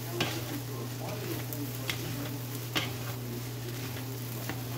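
Wooden spatula stir-frying rice in a wok, with several sharp knocks and scrapes against the pan over a faint sizzle. A steady low hum runs underneath.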